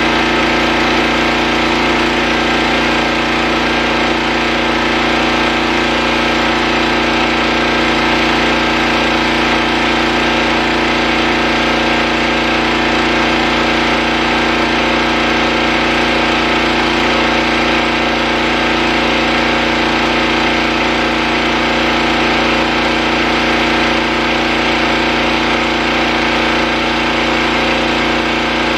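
Pressure washer engine running steadily at a constant pitch while its rotary surface cleaner is pushed over concrete.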